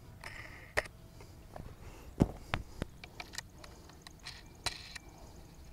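Hands fitting washers and nuts onto the U-bolts of an inflatable-raft motor mount bracket: a handful of sharp small clicks and knocks at irregular intervals, with a brief rustle near the start.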